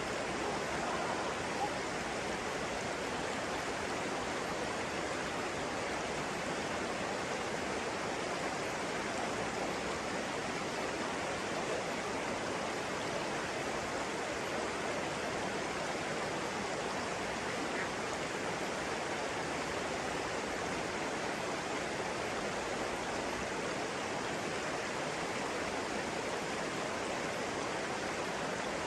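Flowing water making a steady, even rush.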